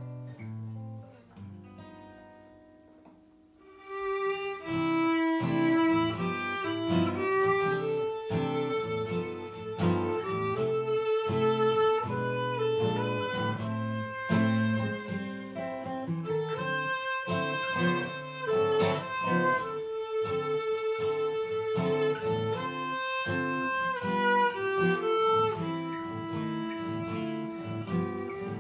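Acoustic guitar and a bowed violin-family instrument playing a jazz standard. A strummed guitar chord rings and fades over the first few seconds. From about four seconds in, the bowed melody enters over steady guitar accompaniment.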